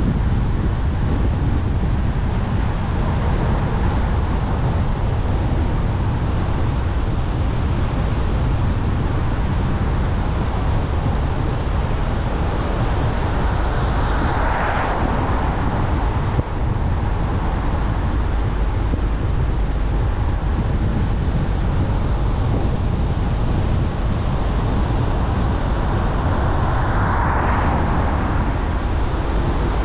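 Steady road and wind noise from a car driving, a deep rumble of tyres and airflow on the microphone. Two brief whooshes swell and fade, one about halfway through and one near the end.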